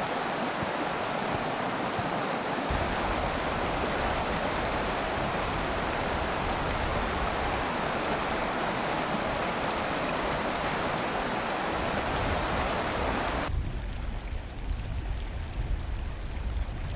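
Fast river water rushing over rocks in rapids: a steady, even rush. About thirteen seconds in it drops suddenly to a quieter, thinner rush with a low uneven rumble of wind on the microphone.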